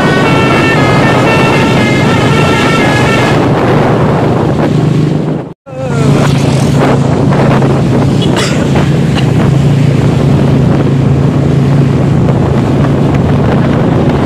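Bus telolet horn playing a short multi-note tune, the notes stepping in pitch, for the first three seconds or so. After a sudden break, a steady engine hum with wind buffeting the microphone.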